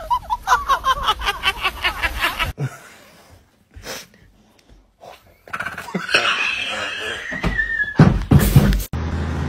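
Rapid, evenly repeated bursts of laughter for about two and a half seconds. After a quiet stretch, a steady hiss of water spraying from a hose wand onto a horse starts about five and a half seconds in and lasts about three seconds.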